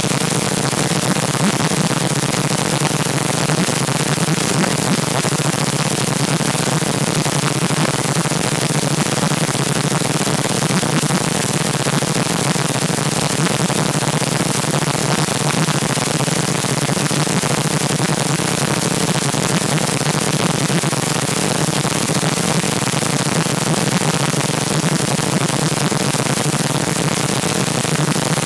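Loud, steady hiss of static, like white noise, with no change or break.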